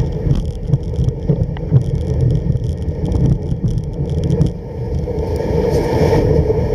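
Runners of a home-made kick sled gliding and scraping over snow while dogs pull it, with wind on the microphone. A rapid rattle of clicks over the first four seconds or so gives way to a steadier hiss.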